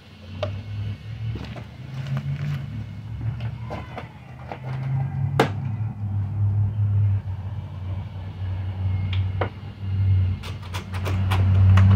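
Scattered knocks and clicks of a wooden board and hand tools being handled on a wooden workbench, over a steady low rumble, with one sharper knock about halfway through and a quick run of clicks near the end.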